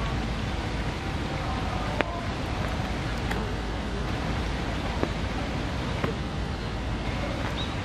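Steady outdoor ambience of a rainy day: a low rumble and hiss, with a few sharp ticks and faint distant voices.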